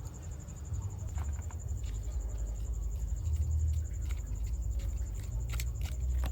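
Light clicks and taps from handling and cleaning a mud-caked diecast model car, coming more often near the end, over a low steady rumble and a faint high whine.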